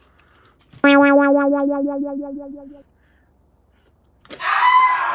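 Comedy sound effects: about a second in, a synthesizer note starts suddenly and pulses rapidly, fading out over about two seconds. Near the end a loud whoosh follows.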